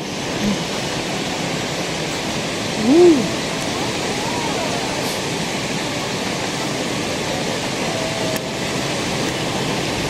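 Steady rushing sound of running water, even and unbroken. About three seconds in there is a brief voiced exclamation.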